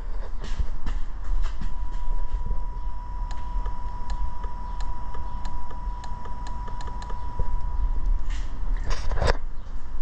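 A/C compressor relay fitted in the horn relay socket of a 2003 Toyota Camry, clicking repeatedly, about two or three clicks a second, as the horn is worked, while the horn itself does not sound. The relay switches but fails the load test: it is bad. A low rumble and a faint steady high tone run underneath.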